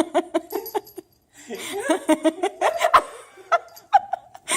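A person laughing in short bursts, in two bouts with a brief pause about a second in.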